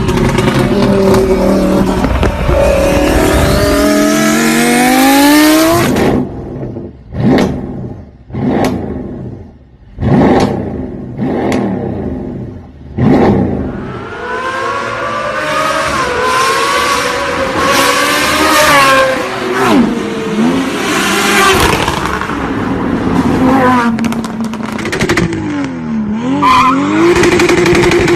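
Car engines revving up with a steadily rising pitch, then about six cars passing fast one after another, each a quick swell and fade. After that, engine sound rising and falling in pitch as cars accelerate and ease off.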